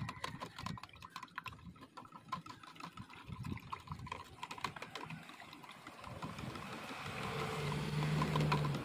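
Drink-making at a coffee bar: scattered clinks of glassware and utensils, then a liquid rushing or bubbling noise that builds for about three seconds and stops suddenly, with a low steady hum under it near the end.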